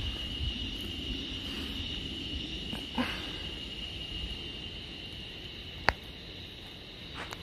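Insects buzzing steadily at one high pitch over a low rumble, with a sharp click about six seconds in.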